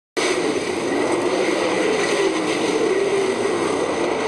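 Sprint-car racing engines running hard in a pack at speed: a loud, dense drone whose pitch wavers as the cars go by, cutting in suddenly at the start.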